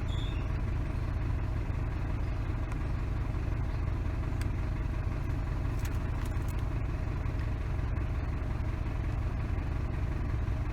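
Isuzu D-Max pickup's engine idling steadily, with no change in note: the air-conditioning compressor's magnetic clutch has not engaged, so the engine carries no compressor load. A few faint clicks come about halfway through.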